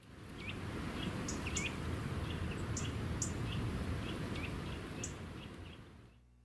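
Outdoor ambience: small birds chirping in short repeated calls over a steady low rumble, fading out near the end.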